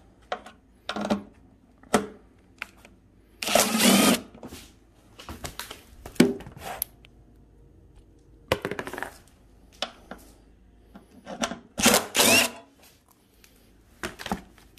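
Hand tools working bolts out of a 1970s Ariens snowblower: scattered metal clicks and clinks, with two louder scraping, squeaking bursts of about a second each, one about four seconds in and one near twelve seconds.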